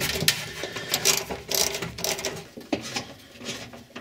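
Irregular metallic clicking and rattling from the old fuel tank's mounting being worked loose by hand with a tool, dying away near the end.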